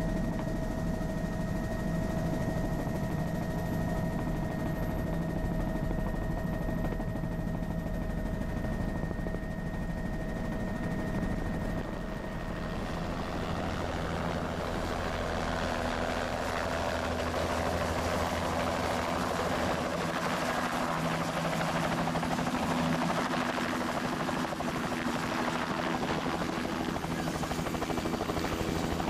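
Helicopter in flight heard from inside the cabin: a steady turbine whine over a low rotor drone. About twelve seconds in this gives way to a Bell 206 LongRanger heard from outside, hovering just above the helipad, its main rotor chopping rapidly over a broad rushing noise.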